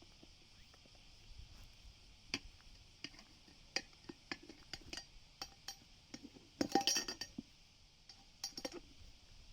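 Metal tools and parts clinking and knocking while a scooter tyre is being changed: scattered light clinks, a quick clatter of several about two-thirds of the way through, and a few more near the end.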